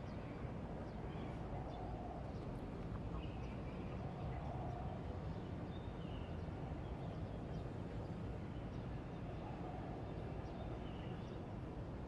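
Steady low background hum of an urban outdoor setting, with faint short bird chirps every few seconds.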